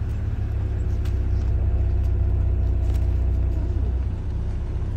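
Car engine and road rumble heard from inside the cabin as the car moves along, swelling for a few seconds and easing off near the end.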